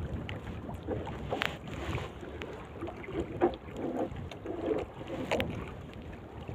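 Water and wind noise around a small wooden fishing boat, with wind on the microphone and a few sharp knocks, the loudest about three and a half seconds in.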